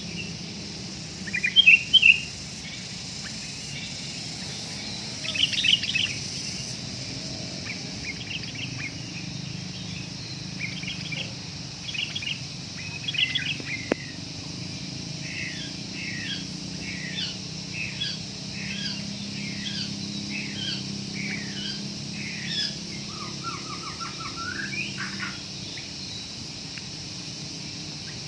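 Sooty-headed bulbul calling: a few loud chirps at first, then a run of short, falling notes about one a second. A steady high insect-like hiss runs underneath.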